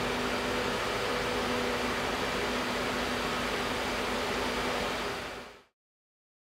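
Electric radiator cooling fan, wired as a sucker fan, running at speed and drawing a strong draft: a steady rush of air with a faint motor hum. It fades out about five seconds in and cuts off.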